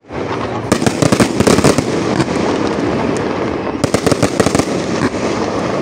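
Fireworks display: aerial shells bursting in rapid volleys of sharp crackling bangs, one cluster about a second in and another about four seconds in, over a steady rushing background.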